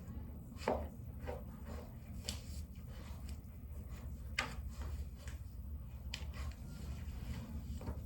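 Scattered light rustles and a few sharp clicks or knocks, about four of them, over a steady low hum.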